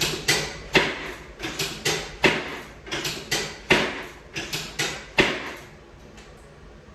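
Chiropractic adjustment of the hips: a quick, uneven series of about a dozen sharp clacks, roughly two a second, some coming in pairs, which stops a little over five seconds in.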